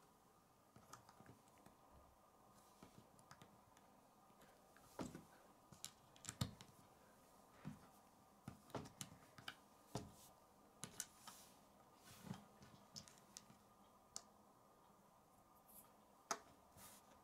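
Faint, irregular clicks and taps of small plastic Lego bricks being handled and pressed together on a wooden tabletop.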